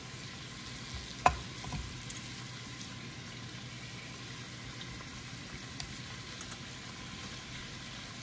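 Diced onion and carrots sizzling steadily in hot oil in a pot, with a sharp knock about a second in and a couple of lighter clicks as onion is scraped off a knife into the pot.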